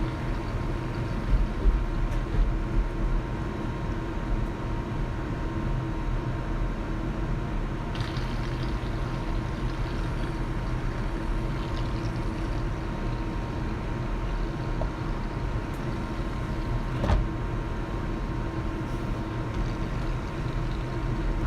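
A steady, even background hum with a constant tone, broken by a few light clicks or knocks about eight and seventeen seconds in.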